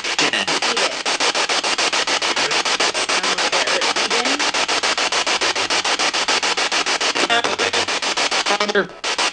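Spirit box radio sweeping through stations: a steady hiss of static chopped into about eight to ten pulses a second, with brief snatches of broadcast sound late on and a momentary dropout near the end.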